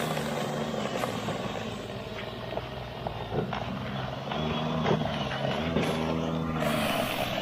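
PowerSmart 80-volt cordless two-stage snow blower running, its motor giving a steady hum that fades in the middle and picks up again about four seconds in. Scattered clicks and knocks come through it.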